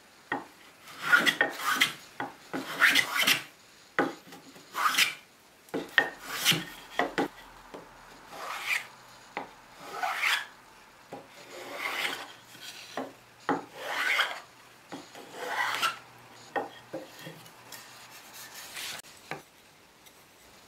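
Metal bench plane shaving the edge of a pine board, about a dozen scraping strokes each lasting half a second to a second, with short knocks between strokes as the plane is lifted and set back down.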